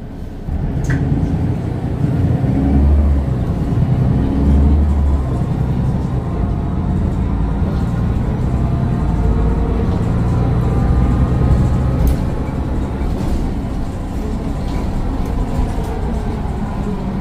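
Mercedes-Benz Citaro O530 bus's Daimler OM906 6.4-litre turbo diesel pulling away and accelerating. It gets louder about half a second in, with a turbo whine that rises and falls in pitch several times over the engine's low rumble.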